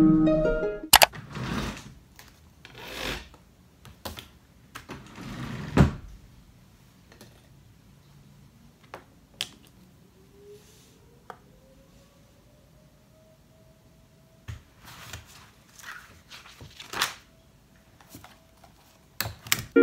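Desk handling sounds: a spiral notebook and pens set down on a desk top with sharp knocks and clicks, some short sliding and rustling, and a notebook being opened. A faint whine rises and then holds steady in the background through the second half.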